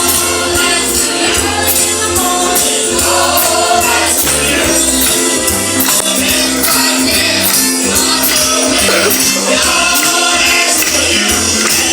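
Animatronic band show's recorded song playing: singing over a band with a steady beat.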